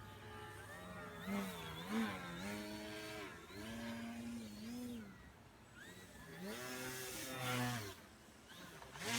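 MX2 foam RC plane's electric motor and propeller buzzing, its pitch swinging up and down as the throttle changes. It surges louder about a second and a half in, and again around seven seconds with a rising pitch.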